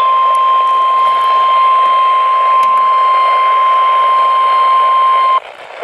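Weather radio emergency alert tone: one steady, loud tone of about 1 kHz over a light static hiss, which cuts off abruptly near the end. It is the attention tone that marks the start of a new weather warning broadcast.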